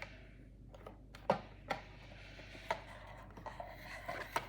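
A few sharp taps and clicks with light rustling as the boxed diecast model car's packaging is handled. The loudest tap comes just over a second in.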